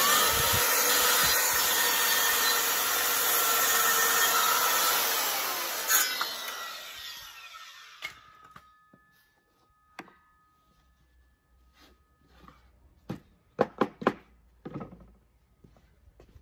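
Bosch GKS 190 circular saw running at full speed and crosscutting a wooden board, a loud steady whine with the sound of the cut. About six seconds in it is switched off and the blade spins down over a couple of seconds. Later come a few sharp wooden knocks as the cut pieces are handled.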